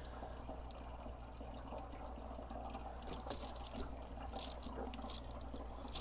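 Water trickling and running through the plumbing of a compost-heated water tank, over a steady low hum.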